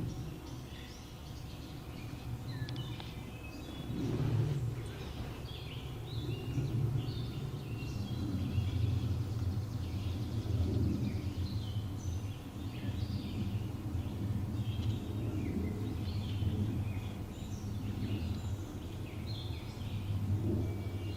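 Small birds chirping and singing over and over, above a low, uneven rumble that drops away right at the end.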